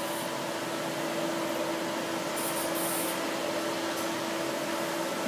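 Steady mechanical hum and hiss with a faint steady tone, with a brief high hiss about halfway through.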